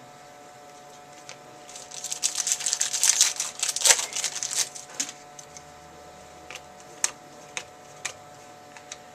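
Trading-card packs and cards being handled: a few seconds of crisp rustling and crinkling of foil pack wrappers, then a handful of single light clicks as cards are shuffled.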